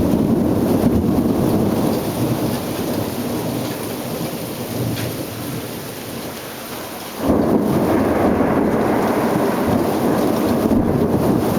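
Thunder rumbling over steady rain during a severe thunderstorm. The rumble slowly dies down, then a new loud clap breaks suddenly about seven seconds in and keeps rumbling.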